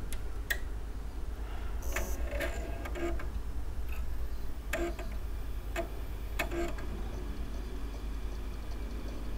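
Scattered light clicks and taps, about eight of them at irregular intervals, over a steady low hum.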